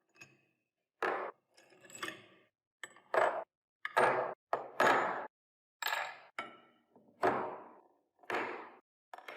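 A series of about ten separate metallic clinks and knocks, each ringing briefly, as metal parts and tools are handled and struck.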